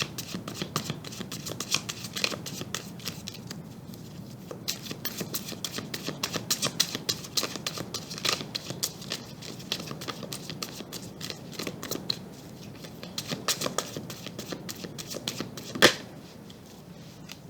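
Tarot cards being shuffled by hand: a long run of quick papery clicks, with one sharper, louder snap near the end.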